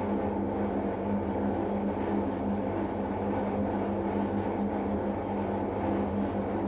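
Drain pump of a Gorenje SensoCare W7723 washing machine running during the first drain, a steady hum. The owner says this pump makes strange sounds from a small problem.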